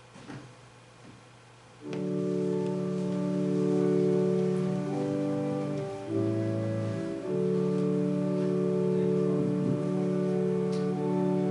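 Church organ music begins about two seconds in, with long sustained chords held steady and changing only every second or few seconds. A few faint knocks come before it.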